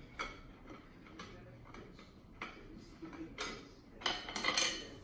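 Metal wing nuts being unscrewed from the threaded rods of an anesthesia machine's absorber lid: a string of light metallic clicks and scrapes, loudest about four seconds in.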